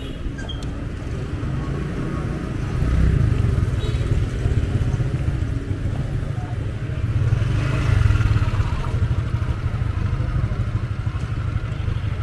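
Road traffic passing, motor vehicle engines running, growing louder about three seconds in and again around eight seconds.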